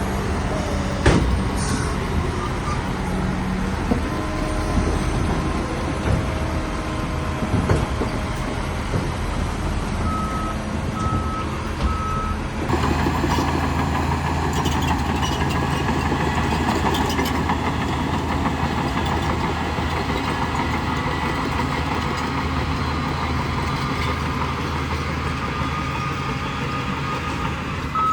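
Heavy diesel earthmoving machinery running steadily under load. A sharp metallic clank comes about a second in, and a reversing alarm beeps three times about ten seconds in and again near the end.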